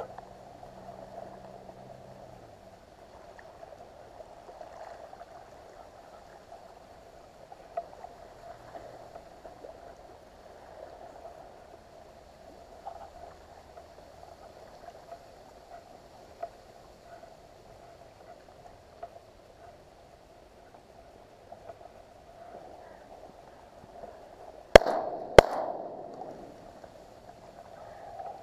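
Two shotgun shots about half a second apart near the end, each with a short echo trailing off over open water. Before them there is only a faint steady wash of water.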